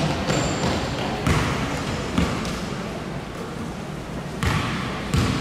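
A basketball bouncing on a gym floor: about five irregularly spaced thuds, with a lull in the middle.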